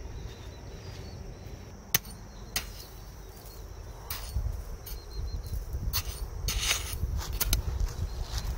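Small hatchet chopping into gravelly sand: a couple of sharp knocks, then a quicker, irregular run of them from about four seconds in.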